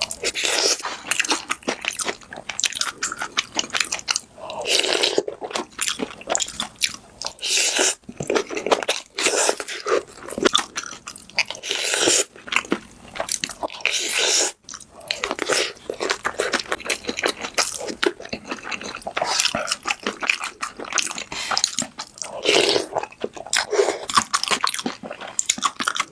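Close-miked eating: a person biting and chewing crisp food with repeated crunches, mouth sounds in quick runs throughout.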